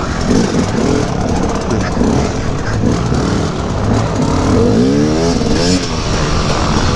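KTM 250 EXC two-stroke dirt bike engine revving up and down under short bursts of throttle, with several clear rising and falling sweeps in pitch about five seconds in.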